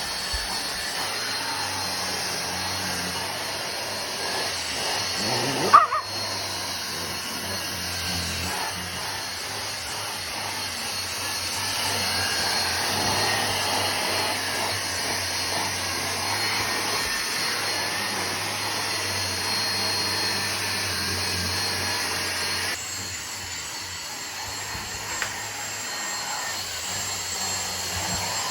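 Dyson vacuum cleaner running steadily with a high whine. A dog gives one short, sharp bark about six seconds in. The vacuum sound gets somewhat quieter for the last few seconds.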